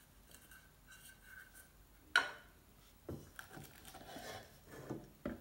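Light handling of a homemade aluminium cat food can stove and a titanium cook pot: a sharp tap about two seconds in, then light scraping and clinking of metal as hands work in the pot, with another small knock near the end.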